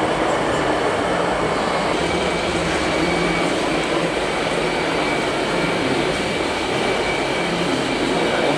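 Steady, dense din of a busy exhibition hall: a constant wash of rumbling noise with no single event standing out, and a faint steady high tone from about two seconds in.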